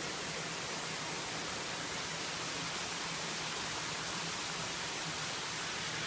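Waterfall and stream water rushing, a steady even hiss.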